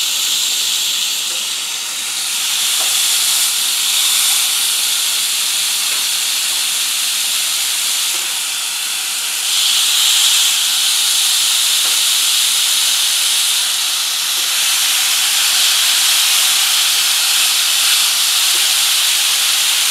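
Raw burger patties sizzling on the hot grill grate of a Ninja Foodi Smart XL Pro indoor grill: a steady hiss that steps up louder about halfway through as another patty goes down.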